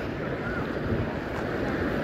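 Steady wash of small waves breaking on a sandy beach, mixed with wind rumbling on the microphone and faint chatter of people on the beach.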